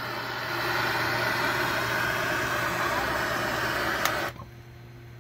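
Bernzomatic trigger-start torch flame hissing steadily as it heats a copper pipe's soldered joint to melt the solder, then shutting off suddenly about four seconds in, with a short click just before.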